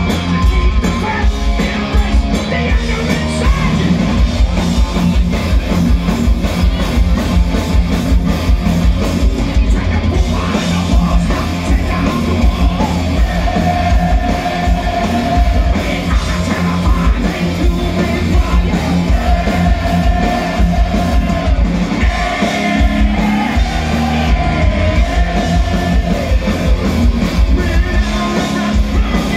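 Live hard rock band playing loudly: distorted electric guitars, a drum kit and a singer, heard from among the audience.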